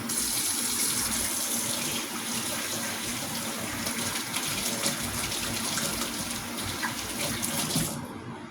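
Kitchen tap running while hands are rinsed under it, a steady rush of water that shuts off near the end.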